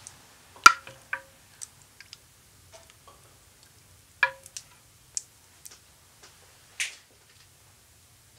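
Wooden spoon knocking against the sides and bottom of a glass dish while stirring milk and jelly cubes: scattered clicks, two louder knocks with a short ring from the glass, and a softer wet sound near the end.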